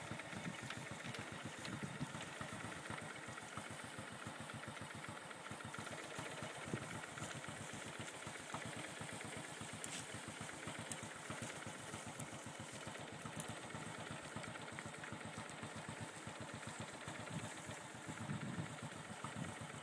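An engine idling steadily, a fast, even pulsing at low pitch over a steady hiss.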